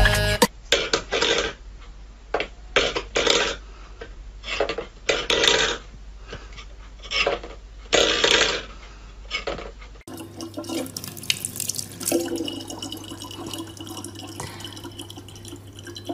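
A run of about nine short, loud noises at irregular intervals, then, after a cut, water running steadily from a kitchen tap into a sink over a low hum.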